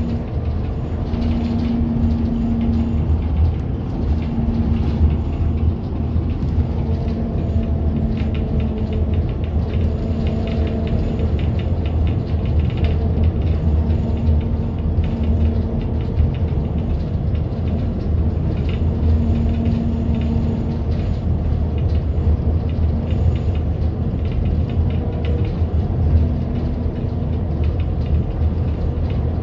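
Steady engine and road rumble heard from inside a moving city bus, with a low hum that comes and goes.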